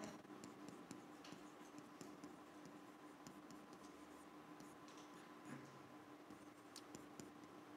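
Faint scratching and tapping of chalk on a blackboard as words are written, in small irregular strokes over a faint steady hum.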